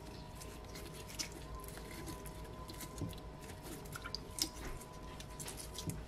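Charred skin being peeled by hand off fire-roasted eggplants in a bowl of water: soft wet squishing with small crackles and clicks of the skin.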